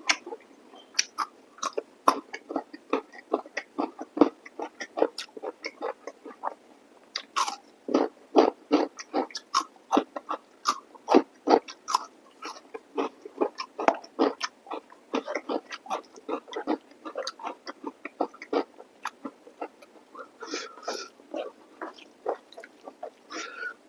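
Close-miked eating sounds: chewing and lip-smacking on chicken masala curry with rice and salad, a steady run of short, sharp wet clicks several times a second. There are a few fuller slurping mouth sounds near the end.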